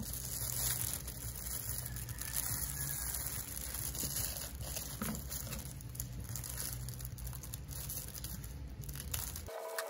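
Plastic poly mailer bag crinkling as hands pull and work at its opening, with scissors cutting into the plastic near the end. The sound cuts off abruptly just before the end.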